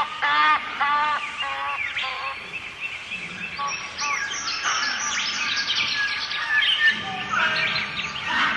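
A chorus of jungle birds calling at once, many overlapping chirps, whistles and trills. In the first two seconds one bird repeats a short, curved note about three times a second.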